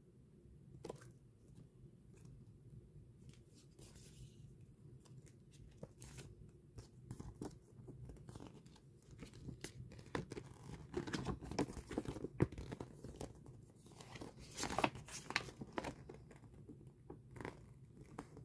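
A folded paper poster being handled and unfolded: irregular paper rustling and crinkling with small crackles, busiest in the second half.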